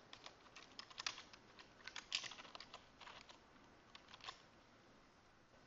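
Faint typing on a computer keyboard: scattered, irregular keystrokes that stop about four seconds in.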